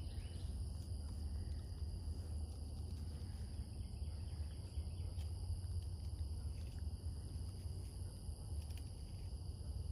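Steady outdoor insect chorus, trilling at a few constant high pitches, over a low steady rumble.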